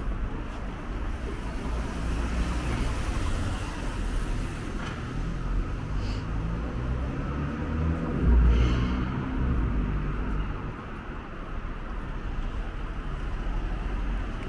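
Road traffic on rain-wet city streets: cars passing with a steady low rumble and tyre noise, loudest just past the middle.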